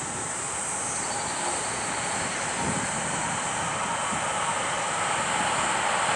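Keisei AE-series Skyliner electric train approaching at speed, a steady rushing noise of wheels on rail and air that grows gradually louder.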